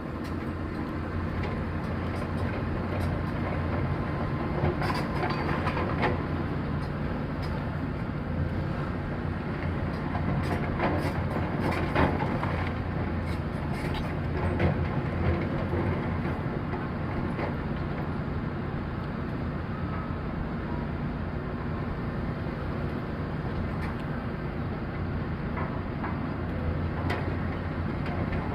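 Komatsu excavator's diesel engine running steadily under work, with scattered sharp metallic knocks and clanks, heaviest in the first half.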